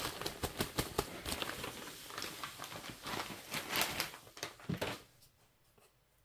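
Wisedry silica gel crystals poured from a plastic bag into a plastic tub: a crackly, rustling hiss of grains with bag crinkle, stopping about five seconds in.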